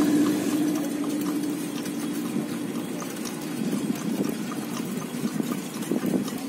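A minivan's engine passing close by and fading away over the first second or so. After it, a steady rumble with small rattles from pedal rickshaws rolling over the concrete road.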